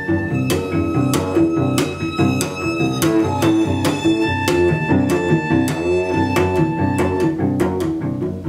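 Solo cello being bowed: a fast passage of short notes with crisp, sharp attacks.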